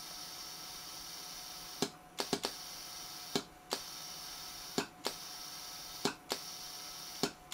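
Steady hiss of compressed air through a pneumatic vacuum pick-up rig, an air-driven vacuum generator venting at its open exhaust. It breaks off briefly about five or six times, each break marked by sharp clicks of the foot-pedal solenoid valve switching as the parts are picked and dropped.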